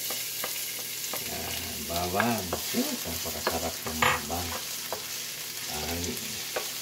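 Chopped garlic sizzling in hot cooking oil in a stainless steel pot, stirred with a wooden spoon that clicks and scrapes against the pan. It is the first stage of sautéing, frying the garlic toward golden brown.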